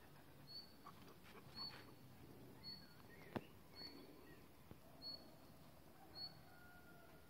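Near silence, broken by a faint, short, high chirp that repeats about once a second, and one sharp click about halfway through.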